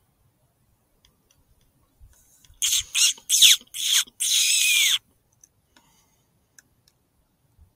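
Mouth-blown fox call whistle giving five quick squealing, wailing notes about halfway through, several sliding down in pitch and the last one drawn out longest: a distress-style call to draw in foxes.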